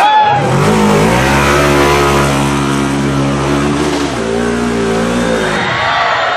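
Off-road vehicle engine revving. It climbs in pitch over the first second and holds high, then drops back briefly about four seconds in and revs up again before cutting off near the end.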